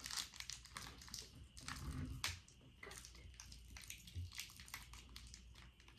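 Faint irregular crinkling and clicking of a candy wrapper being handled and torn open.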